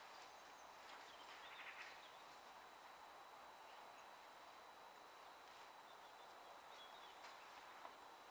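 Near silence: faint outdoor background hiss with a few soft clicks, one just before the end.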